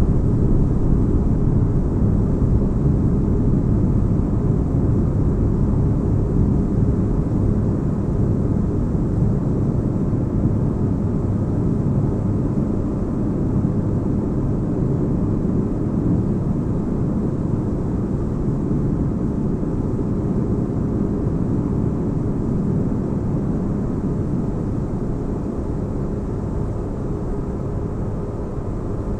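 Steady deep-bass droning noise of a designed sci-fi spaceship-interior ambience, nearly all its weight in the low end with only a faint hiss above. It eases slightly in level toward the end.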